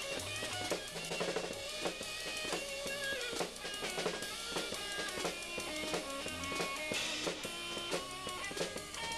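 Live rock band playing: a drum kit is beaten hard, with bass drum, snare and cymbal hits, over sustained guitar notes.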